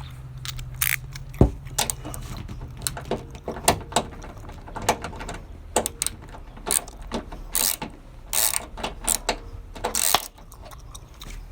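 Hand ratchet clicking and metal tools clanking in short, irregular bursts as the bolts of a newly fitted shock assembly are tightened down. A low hum runs under the first few seconds.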